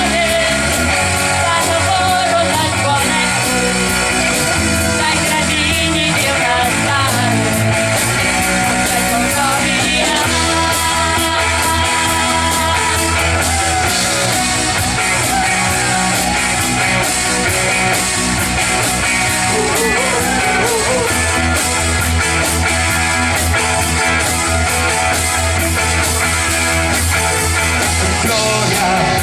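Rock music: a voice singing over guitar and band accompaniment, loud and continuous.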